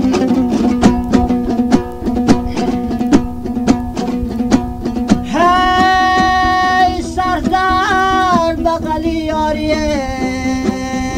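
Afghan dambura strummed in a quick, even rhythm over its droning strings. About five seconds in, a man's voice enters with a long held note, ornamented in the middle and stepping down near the end, in the Farkhar rubai singing style. The sound comes from an old cassette recording.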